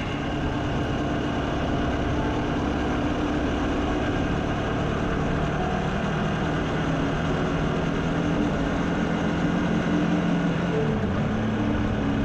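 Motorcycle engine running while riding, over a steady rushing noise; the engine note shifts in pitch near the end.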